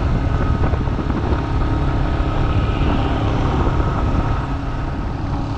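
Motorcycle running steadily while riding along a road, under a dense low rumble of wind and road noise.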